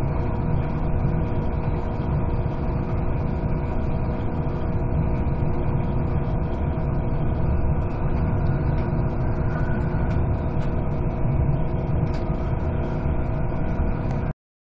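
Airport Express train running, heard from inside the carriage: a steady low rumble and noise with a constant hum of several steady tones. The sound cuts off abruptly near the end.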